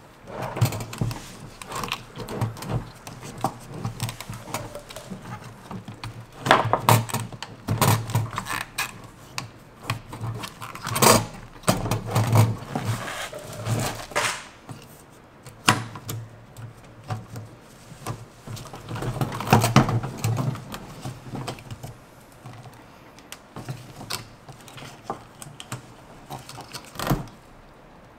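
Irregular clicks, knocks and rattles of hard plastic as the fuel pump module is handled in the fuel tank's opening and its fuel-line connectors are worked loose, with short flurries of clicking now and then.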